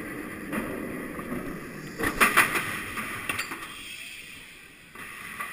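Wind rushing over a chest-mounted camera and the rattle of a steel inverted roller coaster train running on its track, with a burst of clattering about two seconds in. The noise dies down as the train slows toward the station near the end.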